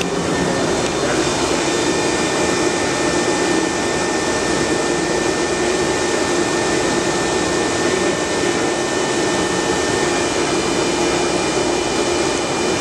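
Studer S40 CNC cylindrical grinder running: a steady machine noise with a low hum and a high whine, the whine changing pitch about ten seconds in.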